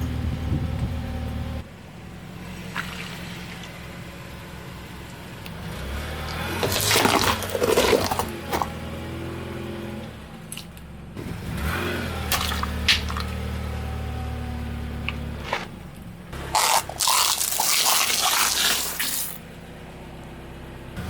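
Car engine running at low speed while its tyre rolls over and crushes objects, with three spells of loud crunching and crackling: a few seconds in, around the middle, and near the end.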